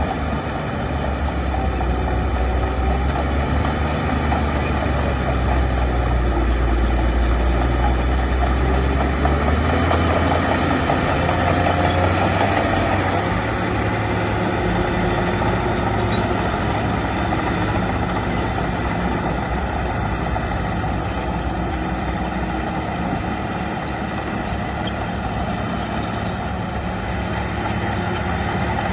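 Shantui DH17 bulldozer's diesel engine running steadily as it works, with a heavy deep drone that eases about ten seconds in.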